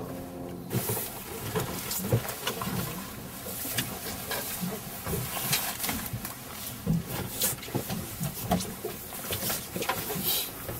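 A boat's steady engine hum cuts off about a second in. It gives way to irregular knocks, rattles and rustling of gear being handled on a fishing boat deck.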